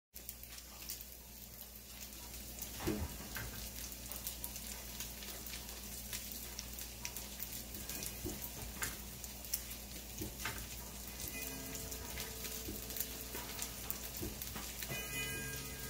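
Faint, irregular ticks and small rattles from a house and its contents shaking in an earthquake, over a steady low hum. A few soft, steady tones come in near the end.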